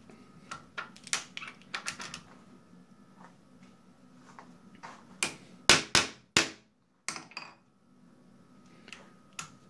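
Steel workpiece being seated in a milling-machine vise: scattered light metal clicks and knocks, then a cluster of firm soft-faced mallet taps around the middle, tapping the block down flat onto the parallel after the vise is nipped up. A faint steady hum runs underneath.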